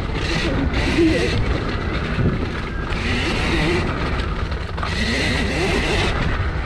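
Husqvarna EE 5 electric mini dirt bike ridden along a dirt trail: the electric motor whine wavers up and down in pitch with the throttle, over a steady rushing noise of riding that swells and fades every second or two.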